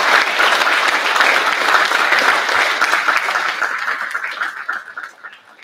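Audience applauding, a dense patter of many hands clapping that thins out and fades away over the last two seconds.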